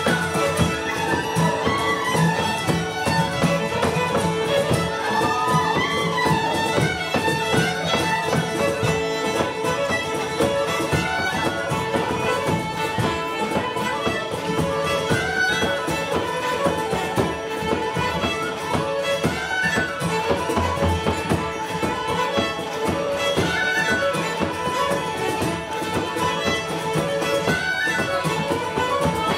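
Live Irish traditional tune played by an ensemble: several fiddles and tin whistles carrying a fast melody together over strummed acoustic guitar, without a break.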